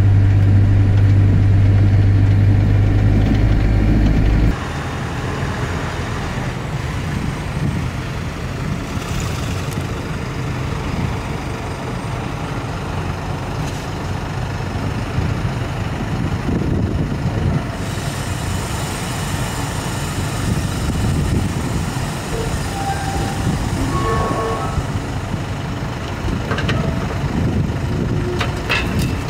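Hydrema 912ES rail dumper's diesel engine. For about the first four and a half seconds it is a loud, steady hum heard from inside the cab. After that the machine is heard running on the track from outside, its engine rising and falling, while the loaded skip begins to tip near the end.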